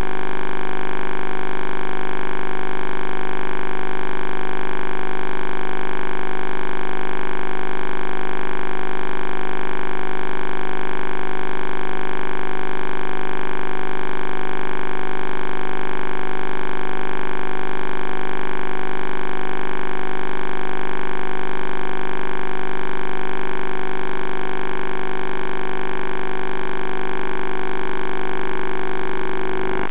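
Steady electrical hum and whine made of many fixed tones, from the well-inspection camera's recording electronics, with a fainter tone pulsing on and off evenly through it.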